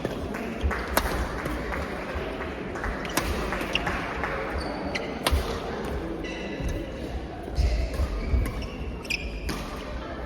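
Sharp hits and low thuds of play in a doubles match, echoing in a large hall, over a steady background of people.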